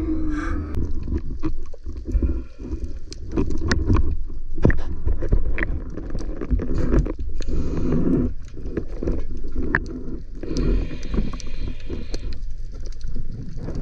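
Water sloshing and rumbling around an underwater camera near the sea surface, with many scattered sharp clicks and knocks.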